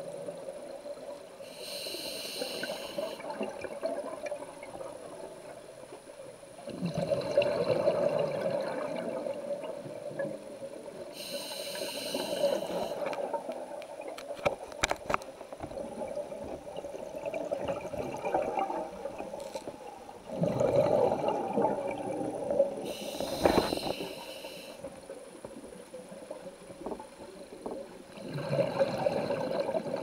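Scuba diver breathing through a regulator underwater: a short hissing inhale about every ten seconds, each followed by a longer bubbling exhale. A few sharp clicks come about halfway through.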